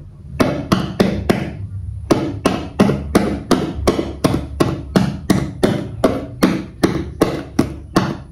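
A pen knocking hard and repeatedly on a paper-covered picture board: sharp knocks about three a second, with a short pause about 1.5 s in.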